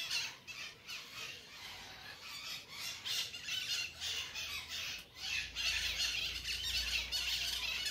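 Birds chirping and squawking in the background in patches of high-pitched calls, with a faint low hum coming in about five seconds in.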